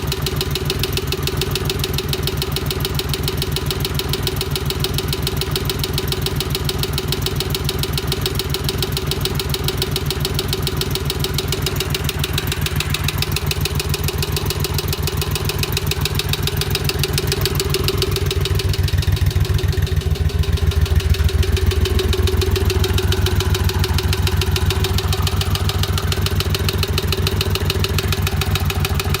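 Honda CX500 V-twin engine idling with a fast, steady mechanical rattle, getting a little louder for a few seconds about twenty seconds in. The owner traces the rattle to the timing chain rather than the valves.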